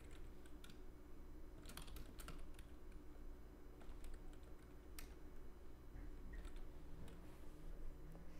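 Faint computer keyboard typing: scattered keystrokes, a few clicks at a time, over a low steady hum.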